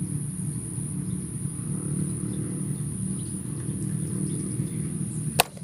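A steady low rumble, with a constant thin high-pitched whine above it, broken by one sharp click shortly before the end.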